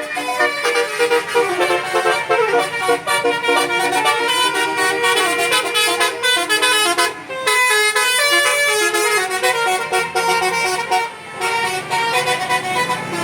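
Bus 'telolet' multi-tone musical horn playing a tune, a quick run of changing notes that breaks off briefly about seven seconds in and then carries on.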